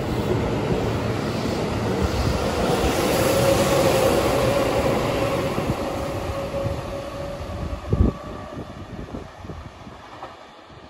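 Keihan Main Line electric train moving along the station track: wheel rumble with a steady motor whine builds to its loudest about four seconds in, then fades as the train draws away. A single thump comes about eight seconds in.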